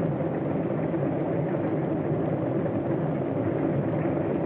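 Aircraft engines running at idle: a steady low drone with no change in speed.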